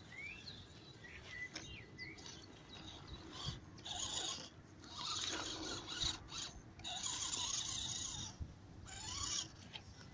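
RC crawler truck's electric motor and gearbox whining in about four bursts as it is throttled up a sandy mound, the pitch rising and falling with each push of the throttle.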